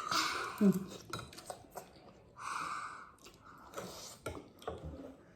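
Noodles being eaten: two noisy sucking slurps, one at the start and one about two and a half seconds in, with light clicks of utensils on a bowl in between and a brief vocal sound early on.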